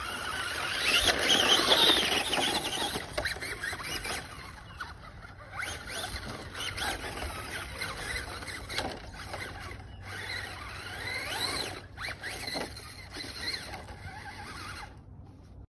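Electric radio-controlled monster truck driving on dirt, its motor whining up and down in pitch as it speeds up and slows, loudest about a second or two in, with scattered clicks.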